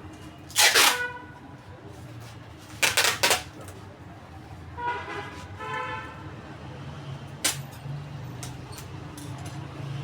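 Parcel-packing noises: two loud, short rasping bursts near the start, a brief pitched tone around the middle, and a sharp click near the end.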